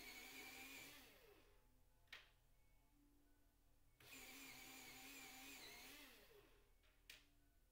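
Faint hum of a small motor that winds down with falling pitch, gives a single sharp click and goes quiet, then starts again abruptly; the cycle repeats about every five seconds.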